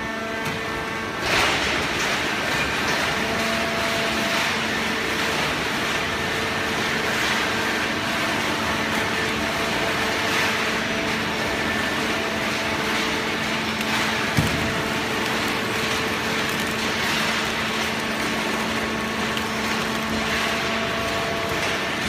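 Automatic horizontal hydraulic cardboard baler running: a steady hydraulic pump hum with whining tones under broad machine noise. There is a short burst of noise about a second in and a single sharp knock about fourteen seconds in.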